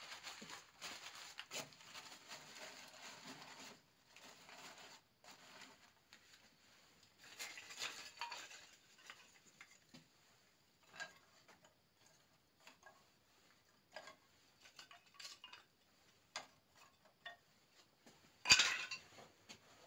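Paper rustling as it is crumpled and stuffed into a forge hearth, then wood kindling laid in on top with scattered light clinks and knocks. There is one louder sharp knock near the end.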